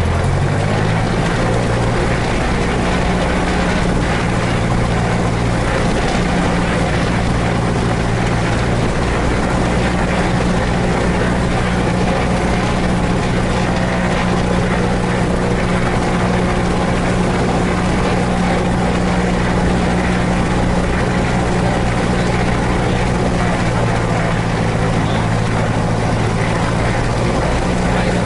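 Cessna 150H's four-cylinder Continental O-200 engine and propeller, heard from inside the cabin. Engine speed is raised from idle about a second in and held steady at a higher setting, then brought back to idle near the end. This fits a pre-takeoff engine run-up.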